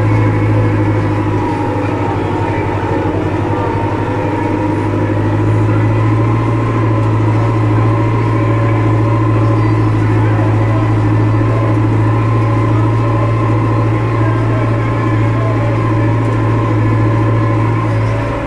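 Armatrac 854 Lux tractor's diesel engine running steadily under load, pulling a trailed disc harrow across unploughed ground. A loud, steady deep drone.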